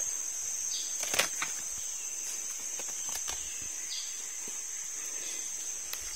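Steady high-pitched buzz of forest insects, with footsteps crunching over dry bamboo leaves and twigs; a sharp snap about a second in.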